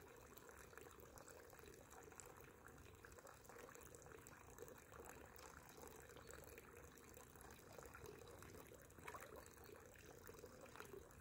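Near silence: a faint, even background hiss, with one faint brief sound about nine seconds in.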